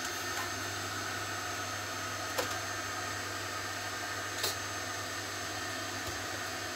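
Steady hum and whir of a 3D printer running in the background, with two brief clicks a couple of seconds apart.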